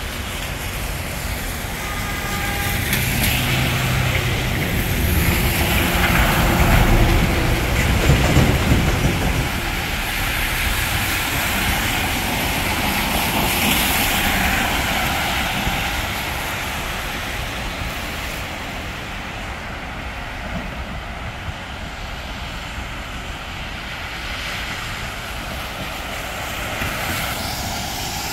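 Vehicles passing one after another on a rain-wet street, their tyres hissing on the water, each pass swelling and fading. Under the first passes there is a low rumble from a heavier vehicle, and a steady wash of street noise runs beneath it all.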